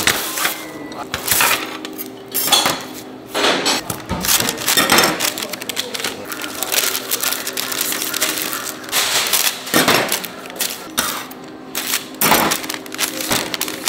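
Kitchen handling sounds: metal baking molds and steel trays clinking and clattering in a string of sharp knocks, with paper bags rustling, over a steady low hum.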